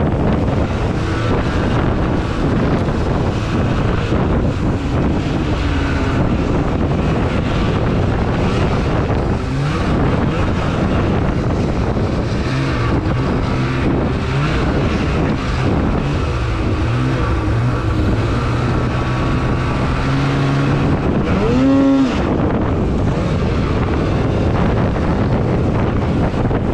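Snowmobile engine running under way, its pitch rising and falling with the throttle, with a quick sharp rev a little over three-quarters of the way in. Wind noise rushes over the microphone throughout.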